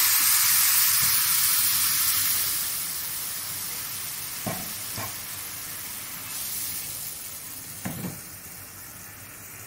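Mustard paste sizzling in hot mustard oil in a frying pan. The sizzle is loud at first and dies down over the first few seconds to a lower steady hiss. A few light knocks come around the middle and near the end.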